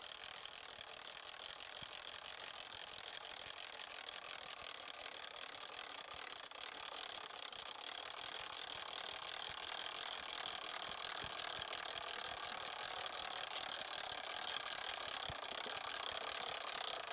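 Crank mechanism of an Avenger Long John Silver wind-up light stand being wound fast and without pause, a steady mechanical rattle of its gearing as the risers extend to full height. It grows gradually louder.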